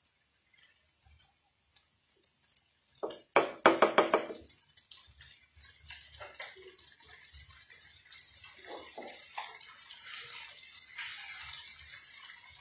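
Dried Bombay duck, tomatoes and onions frying in a nonstick pan on a gas stove, sizzling with a steady hiss that grows louder from about eight seconds in. A brief loud clatter comes about three seconds in.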